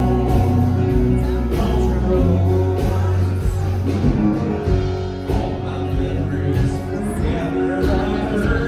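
Rock-style band music with a singer, guitar and a steady bass line and beat, starting abruptly.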